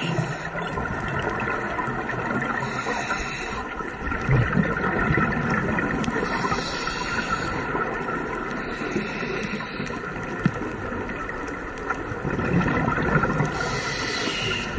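Underwater sound of scuba divers breathing through their regulators, heard through a camera housing: a burst of bubbling exhaust every few seconds over a steady underwater drone.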